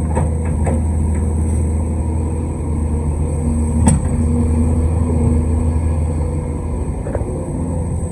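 Large excavator's diesel engine running steadily, with a sharp metallic knock about four seconds in and a few lighter knocks from the working machine.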